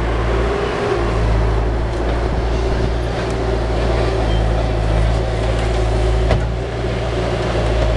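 An engine running steadily with a low, even rumble, with one sharp click a little after six seconds in.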